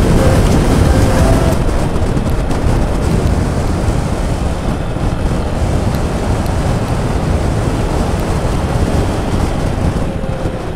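Motorcycle riding along, its engine noise mixed with steady wind rush over the microphone.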